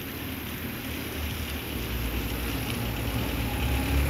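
Low rumble of a vehicle driving slowly, heard from inside it, growing louder over the last two seconds.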